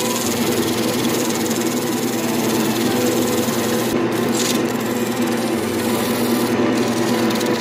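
Wood lathe running steadily with a constant motor hum while sandpaper is held against the spinning wooden brush handle, giving a continuous rubbing hiss.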